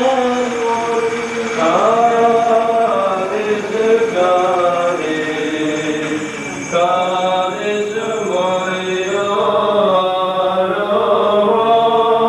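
Liturgical chant of the Syriac Orthodox Holy Qurbana, sung by voices in a slow, drawn-out melody with long held notes.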